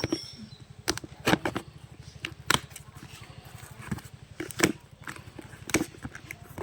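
Handling sounds of a smartphone being unboxed: a series of sharp knocks and clicks from the box and its contents, about one every second, over a steady low hum.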